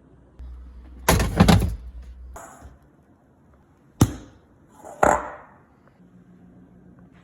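Kitchen handling noises: a loud rattling, scraping clatter, a smaller one, then two sharp knocks about a second apart.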